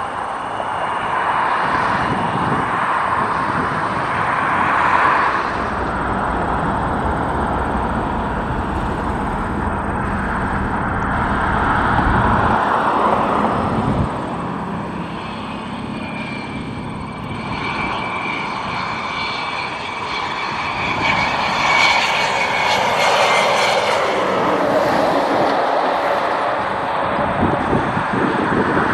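Jet aircraft engines running at an airport: a continuous rushing noise from passing regional jets and a business jet. A steady high engine whine rises out of it for several seconds midway.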